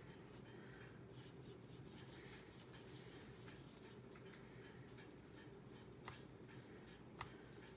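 Faint scratching and light taps of a paintbrush mixing gouache paint on a palette, with a couple of slightly sharper taps near the end, over low steady background noise.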